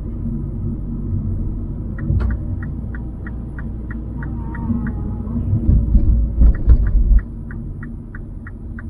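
Low road and engine rumble heard inside a moving car's cabin, with a louder rumbling stretch past the middle. From about two seconds in, a turn-signal indicator ticks evenly, about three ticks a second, as the car nears a junction.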